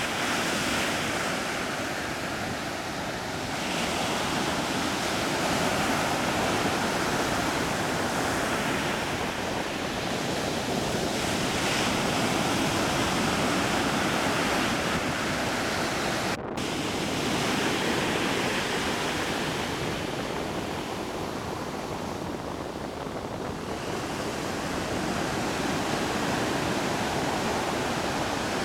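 Sea surf and wind: a steady rush of waves that swells and eases every few seconds, cutting out for an instant about halfway.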